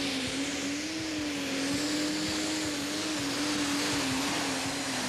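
Valmet pro stock pulling tractor's turbocharged Sisu diesel engine running flat out under load during a pull: a steady, loud drone that wavers slightly in pitch.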